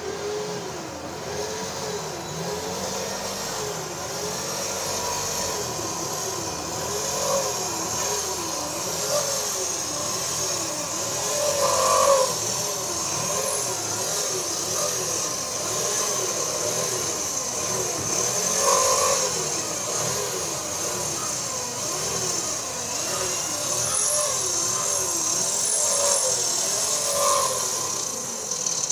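Outdoor traffic noise with a warbling tone that rises and falls about once a second throughout.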